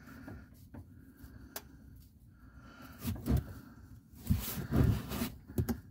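Scattered clicks and dull knocks of a gloved hand working at a car transmission's drain plug underneath the car, with a louder knock about three seconds in and a cluster of knocks a little past four seconds.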